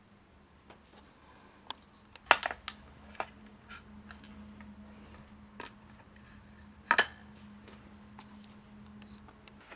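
Scattered light clicks and taps of small hard objects being handled, with two sharper knocks about two and seven seconds in, over a faint steady hum.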